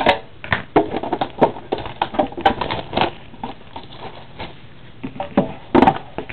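Crumpled foil card-pack wrapper crinkling while trading cards and packaging are handled: a quick, irregular run of crinkles and crackles that thins out after about three and a half seconds, with a louder cluster of crackles near the end.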